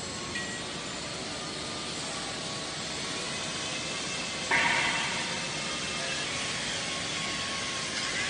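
Steady rushing noise of running industrial machinery with faint high whines. About halfway through, a sudden louder burst of noise fades away over about half a second.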